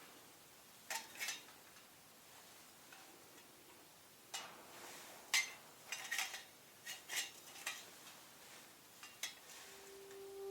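Metal camping gear being handled: a dozen or so light, irregularly spaced clinks and knocks, a few of them ringing briefly.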